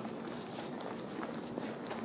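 Walking footsteps on stone paving, about two steps a second, over a steady low hum.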